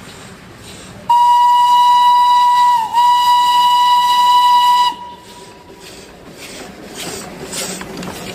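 Darjeeling Himalayan Railway toy train's locomotive sounding a loud, high whistle for about four seconds, with a brief dip in pitch midway through, followed by the train running along the rails.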